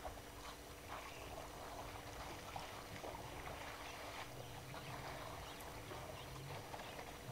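Elephants drinking and wading in shallow water: irregular small splashes and sloshing as trunks and feet stir the water. A low drone sounds for a couple of seconds past the middle.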